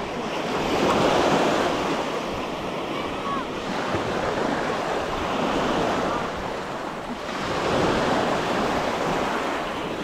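Ocean surf breaking and washing up a sandy beach, swelling about a second in and again near the end as waves come in. Wind buffets the microphone underneath.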